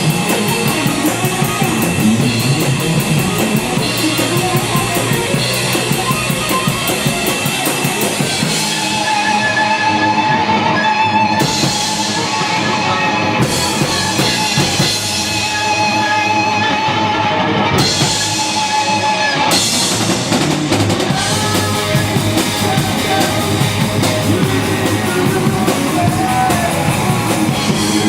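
Live rock band playing an instrumental passage: a full drum kit with bass drum and cymbals under guitars. From about a third of the way in, the cymbals drop out for stretches while guitar notes are held.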